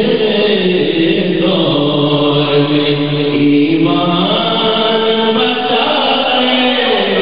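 A man's voice reciting an Urdu naat, singing long held notes that slide down in pitch near the end.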